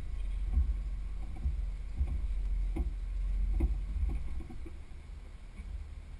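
Jeep crawling slowly over slickrock: a low, muffled rumble of engine and drivetrain with several knocks and clunks in the first four seconds, quieter after that.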